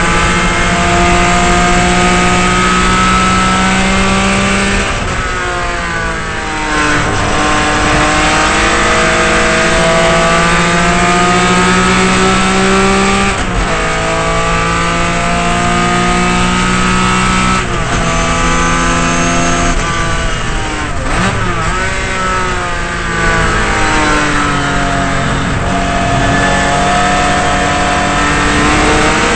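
Datsun 240Z race car's 2.4-litre straight-six heard from inside the cockpit, running hard at racing speed. The engine note climbs under full throttle and drops at each upshift, dips and flares through a series of downshifts with throttle blips about two-thirds of the way in, then climbs again as the car accelerates.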